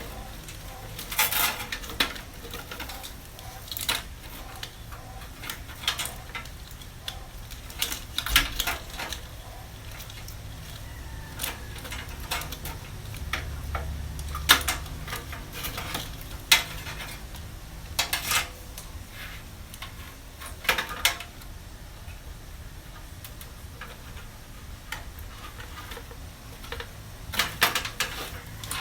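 Irregular metallic clanks, clicks and scrapes as a computer power supply unit is pulled out of a desktop PC's sheet-metal case.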